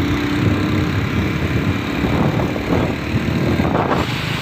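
Engine and road noise from a moving vehicle in traffic, steady throughout, with a low steady hum in the first second.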